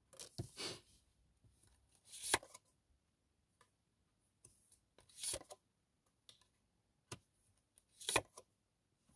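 Tarot cards being drawn and laid down on a table: about five short rustles and slaps, spaced a second or more apart.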